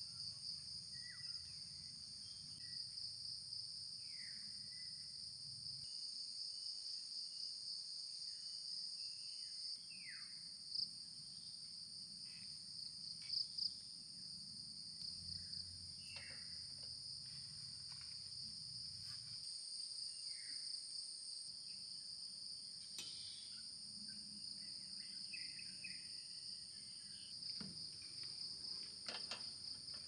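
A steady, high-pitched insect chorus carries through the dusk forest. Short falling calls from a bird repeat every few seconds, and there are a few faint light clicks and knocks.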